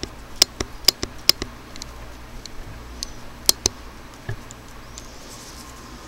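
Light, sharp clicks and ticks from the camera being handled while it is reframed and zoomed in, a few in quick succession in the first second and a pair about three and a half seconds in, over a faint steady hiss.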